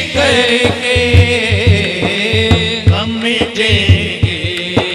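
Male voices singing an Urdu devotional naat in long, bending melismatic lines over a steady hand-drum beat.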